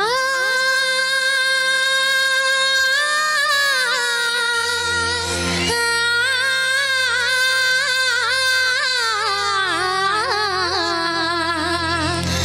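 A woman singing a Tamil folk song through a microphone, sliding up into long held notes and then decorating them with quick wavering turns, over a steady low held accompaniment.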